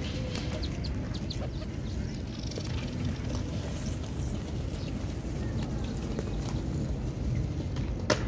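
A flock of racing pigeons feeding at close range: wings flapping and short scuffling taps as they jostle, over a steady low rumble. A sharp click near the end.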